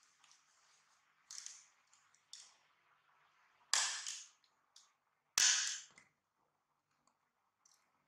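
Hand patting a diapered baby monkey's back and bottom: a few sharp pats, the two loudest about four and five and a half seconds in, each followed by a short rustle.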